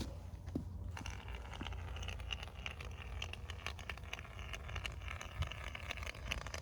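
Spray foam adhesive being dispensed from a foam gun onto a block, a hissing, crackling sputter that starts about a second in, over a steady low rumble.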